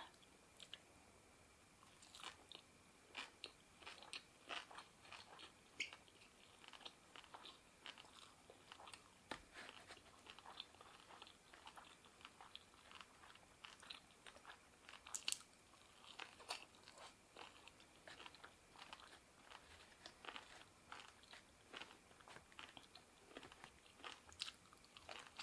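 Faint chewing and biting of crunchy food close to the microphone: a long run of small crisp crunches, several a second.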